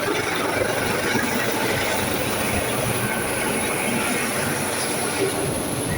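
Helicopter running as it comes in to land: a steady rushing of engine and rotor noise with a constant high, thin whine above it.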